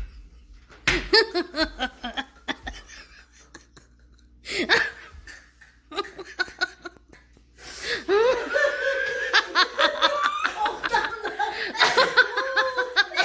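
People laughing: a few short bursts of laughter in the first half, then several voices laughing together, louder and continuously, from about two-thirds of the way in.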